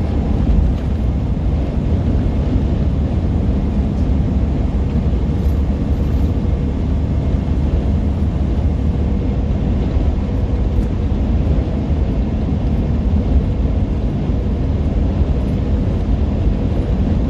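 Steady drone of a semi truck's diesel engine and road noise heard inside the cab at highway speed, a heavy low rumble with a faint steady tone above it.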